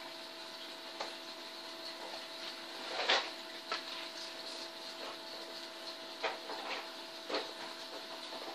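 Small folded paper origami modules rustling and clicking as they are handled, picked from a pile and pushed onto one another, in short scattered bursts with the loudest about three seconds in. A steady hum runs underneath.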